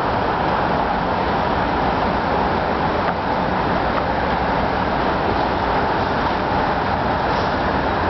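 Steady, even roar of road traffic, with no distinct events standing out.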